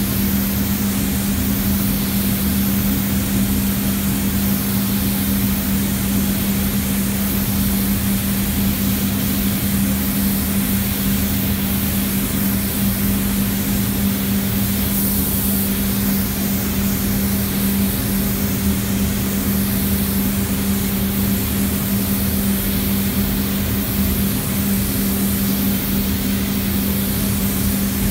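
Rongpeng R802 gravity-feed spray gun hissing steadily as compressed air atomises car paint, over a strong steady low hum.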